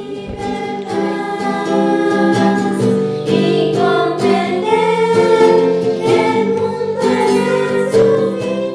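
A group of voices singing a song together, holding notes, with a light plucked-string accompaniment.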